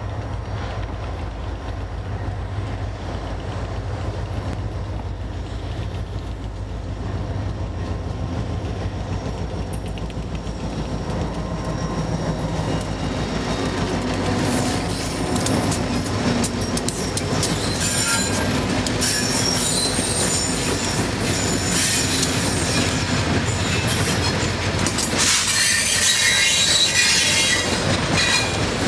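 EMD GP40-2 diesel locomotive approaching and passing with a low, steady engine rumble that grows louder about halfway through. Loaded tank cars then roll by, wheels squealing and clicking on the rails.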